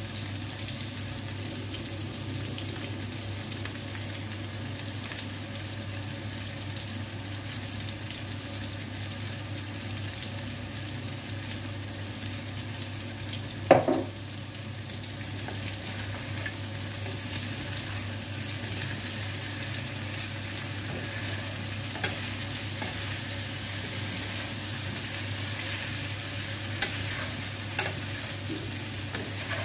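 Chicken pieces and potatoes sizzling in a frying pan as they are stirred, over a steady low hum, with occasional clicks of a utensil against the pan. One loud sharp knock about halfway through.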